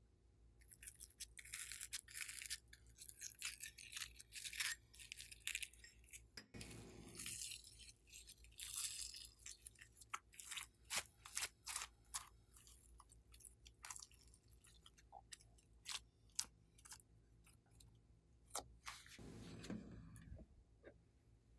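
Hands squishing and kneading blue glitter slime: a run of soft wet clicks and pops, with a few longer rustling scrapes.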